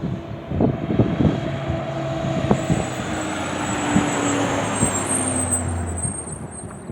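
A vehicle engine passing by: a steady hum that swells to a peak about four seconds in and then fades, its pitch sliding slightly down as it goes past. Wind knocks on the microphone in the first second or so.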